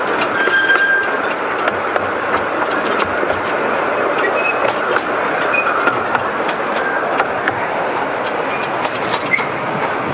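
Running noise of a small narrow-gauge steam train heard from its open carriage: a steady rumble with irregular clicks of the wheels over the rail joints and a few short high squeaks from the wheels.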